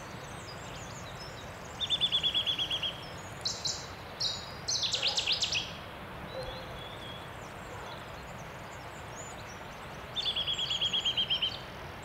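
Birdsong: a fast, even trill of about a dozen notes, heard twice, with other short higher calls in between and faint chirping behind.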